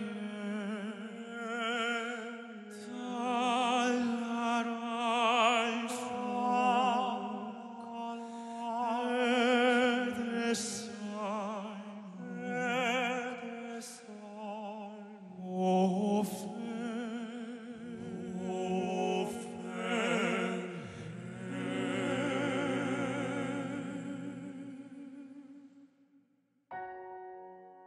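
Male vocal quartet singing slow, classical-crossover harmony in Hungarian, with vibrato over a held low note. Near the end the voices fade out and a soft instrumental passage begins.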